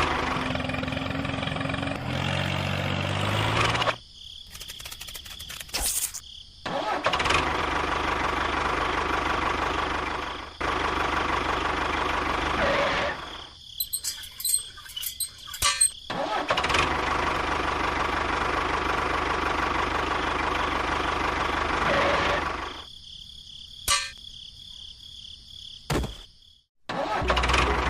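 A small motor running steadily with a faint whine, stopping and starting abruptly several times.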